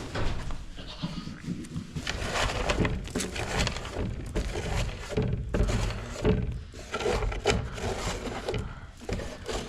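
Irregular knocks, clatters and rustling from barn chores being done by hand.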